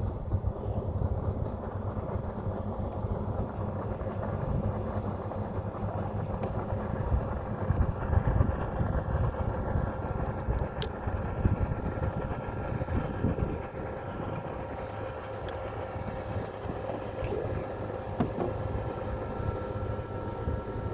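Boat motor running steadily, a low rumble with a steady hum over it, mixed with wind on the microphone. A single sharp tick sounds about eleven seconds in.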